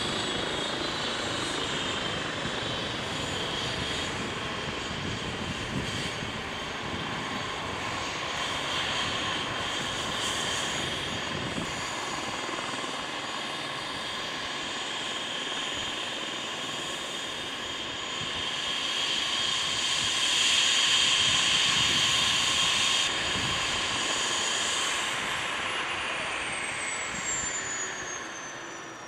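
Airbus H135 T3 helicopter running on the helipad: a steady high turbine whine over a broad engine and rotor noise. Near the end a whine falls steadily in pitch and the sound dies down as the twin turbines spool down.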